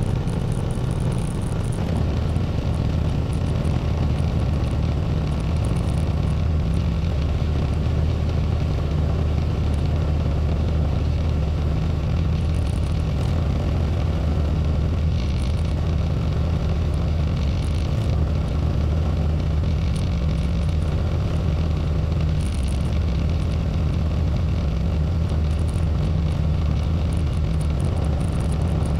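Tractor engine running steadily at a constant low, even drone while plowing snow.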